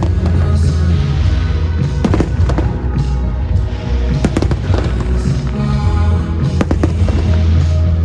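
Fireworks shells bursting in sharp bangs every second or two over a loud pyromusical soundtrack with heavy bass.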